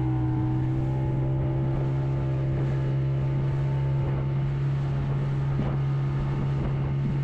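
A fishing boat's motor running steadily at an even speed, a constant low hum.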